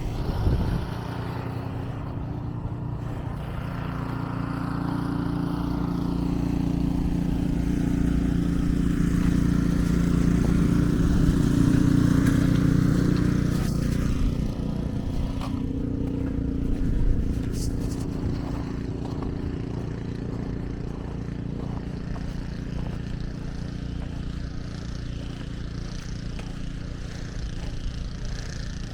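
A passing engine's steady droning hum, growing louder to its peak about twelve seconds in and then fading away, over a low outdoor rumble.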